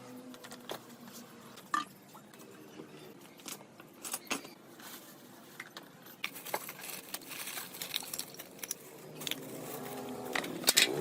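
Small metal parts and tools clinking and tapping in irregular, quick clicks, busier in the second half. A low hum with a rising pitch comes in near the end.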